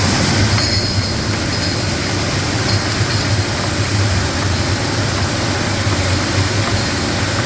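Kaps-All A-6 bottle-capping machine running steadily, with a strong low motor hum under a constant mechanical noise.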